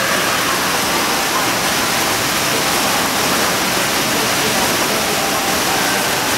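Steady rush of falling water, even and unchanging.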